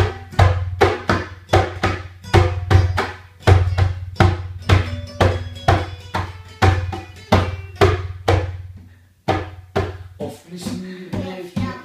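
Classical guitar strummed together with a darbuka beaten by hand, the drum strokes falling in a steady rhythm of about three a second. The playing breaks off briefly about nine seconds in and then picks up again more softly.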